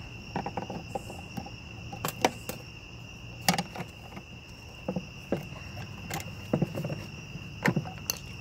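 Irregular clicks and knocks of hard plastic as a screwdriver pries at the xenon HID ballast and the BMW E46 headlight housing is handled. A steady, high chirring of crickets runs underneath.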